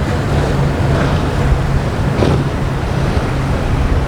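Motorboat engines running with a steady low drone, mixed with waves and wind buffeting the microphone.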